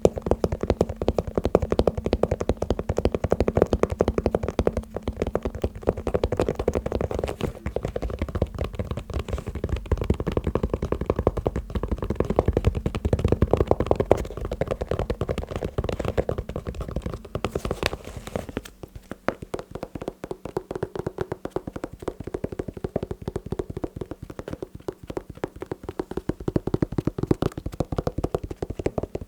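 Fast tapping on shoes, many quick taps a second without a break. About two-thirds of the way through the deep thud under the taps drops away and the tapping goes on lighter.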